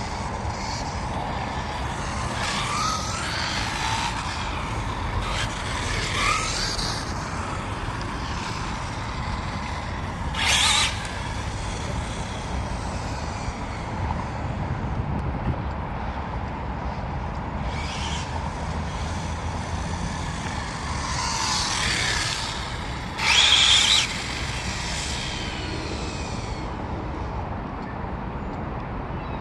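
Electric motor whine of an Arrma Typhon 8S RC buggy rising and falling as it is driven in short runs, over steady background noise. Two short, loud, noisy bursts come about ten and twenty-three seconds in.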